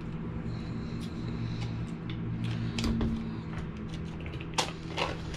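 Light clicks and crinkles from handling a small ice cream cup and picking at its lid, with a couple of sharper taps near the end, over a steady low hum.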